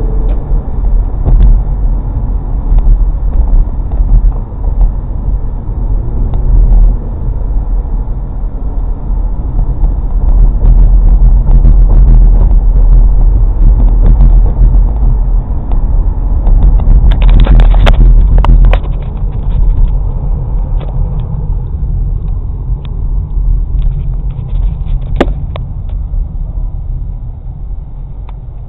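Low, steady rumble of a car on the move, with scattered clicks and a louder, noisier stretch about seventeen to nineteen seconds in.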